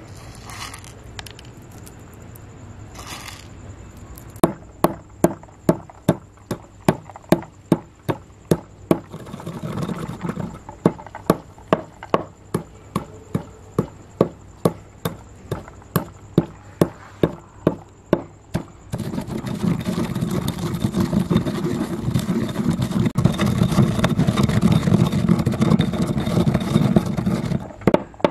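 A run of sharp, evenly spaced chopping strikes, about two a second, goes on for some fifteen seconds. Then comes a steady, coarse scraping noise that cuts off suddenly near the end.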